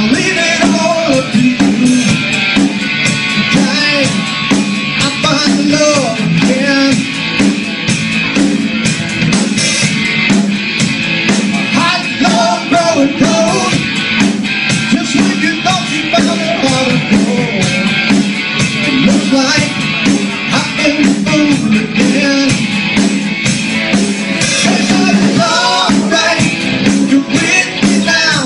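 Rock music with a singer, guitar and drum kit playing.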